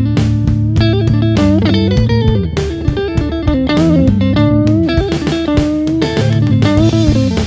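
Instrumental music led by electric guitar over bass, with some notes bent in pitch and sharp, frequent strikes.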